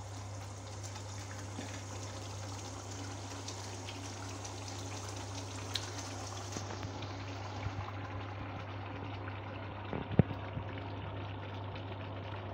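Yogurt-based chicken korma gravy bubbling steadily in a pan as its water cooks down, with scattered small pops, over a low steady hum. A sharp knock about ten seconds in is the loudest sound.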